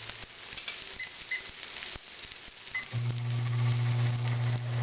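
Microwave oven keypad beeping three times, then the oven starting up with a steady low hum about three seconds in, heating a tortilla. An egg sizzles in a frying pan underneath.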